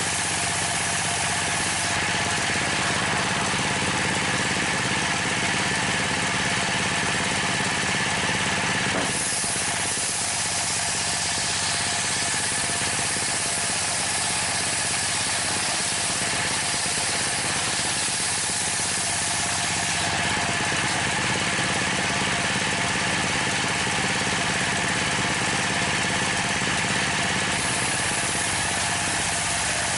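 Dongfeng single-cylinder diesel engine running steadily under load, driving a homemade table circular saw as the blade cuts through a thick timber plank. The saw's sound shifts a few times along the cut.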